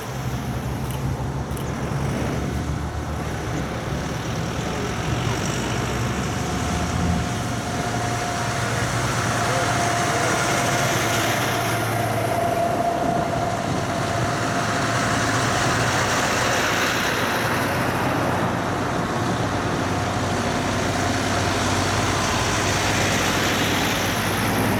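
Heavy diesel trucks in convoy driving past one after another, engines running over tyre and road noise. The sound swells each time a truck goes by.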